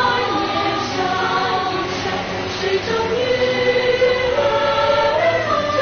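Background music: a choir singing long held notes.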